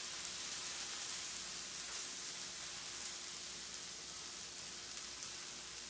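Okra frying in a little oil on an electric griddle, a steady, even sizzle as the last pieces finish browning.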